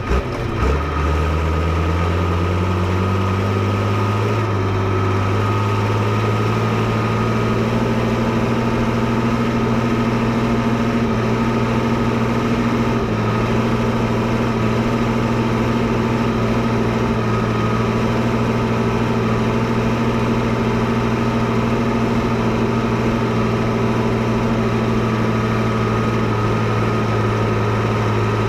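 Fiatagri 115/90 tractor's 5.9-litre six-cylinder Fiat diesel engine running. Its speed rises smoothly over the first few seconds, then holds steady at a raised speed.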